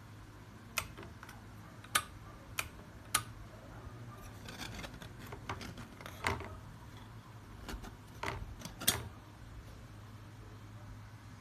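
Handling sounds: about seven sharp clicks and light knocks spread through, with soft rustling between them, over a low steady hum.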